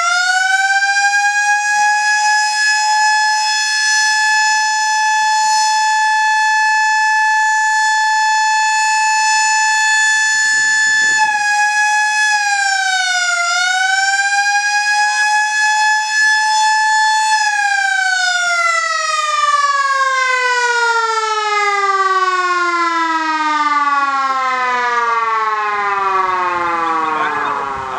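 Sterling Little Giant electromechanical siren sounding a steady single tone at full speed, with a brief dip and recovery in pitch about halfway through. Over the last ten seconds or so it winds down in a long, falling wail.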